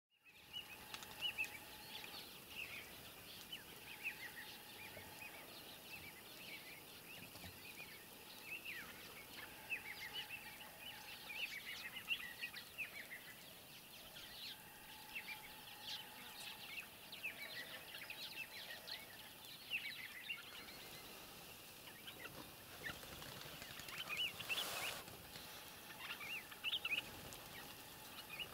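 Many wild birds chirping and calling at once, short notes overlapping throughout, with a brief rushing noise about three-quarters of the way through.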